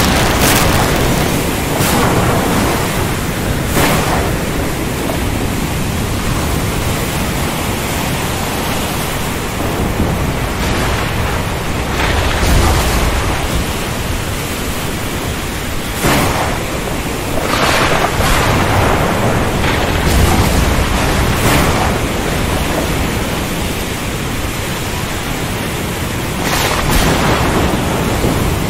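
Thunderstorm: a steady hiss of heavy rain, broken by sharp thunder cracks near the start, a cluster of them about two-thirds of the way through and another near the end, with a deep rolling rumble in between.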